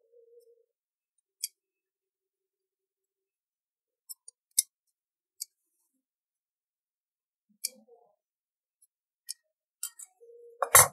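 Scattered sharp clicks and clinks of steel scissors and fabric being handled at an industrial sewing machine, with a brief faint hum and then one loud, short knock near the end.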